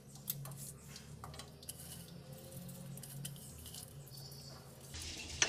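A few faint, scattered clicks and taps of a wooden spatula against a kadhai as cumin seeds and a bay leaf are stirred into hot ghee.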